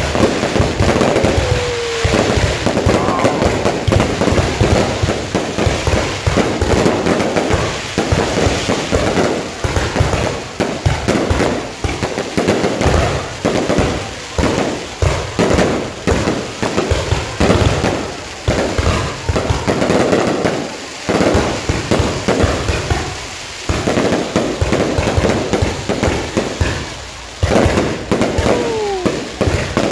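Dense, continuous crackling and popping, many sharp bangs a second, with a short falling whistle just after the start and another near the end.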